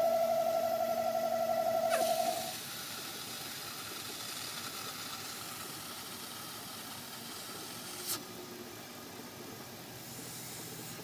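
Loud, steady whistle of a bad vacuum leak on a 1995 BMW 540i's M60B40 V8 engine. The whistle stops a little over two seconds in, leaving a quieter hiss, with a single click about eight seconds in.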